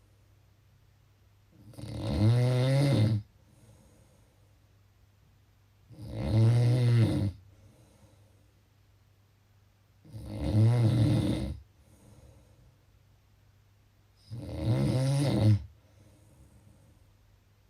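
Snoring: four loud snores about four seconds apart, each about a second and a half long and arching up then down in pitch. A faint breath out follows each one.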